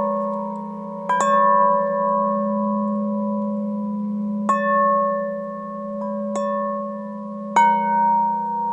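Bell-like ringing metal: a steady sustained hum with several clear tones above it. It is struck afresh about six times, each strike adding a bright ring that slowly fades.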